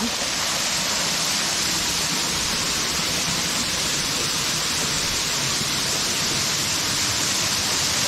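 Small waterfall pouring, a steady, even rush of water.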